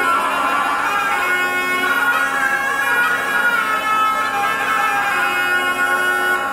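Two zurlas (wooden folk shawms) playing together: a loud, nasal reed melody moving over a steady held low drone note.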